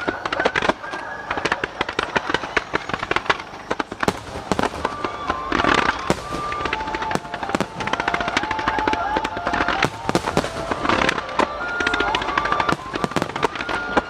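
Aerial fireworks bursting in quick succession, a dense run of bangs and crackles with heavier clusters about six and eleven seconds in. Music with a clear melody plays underneath.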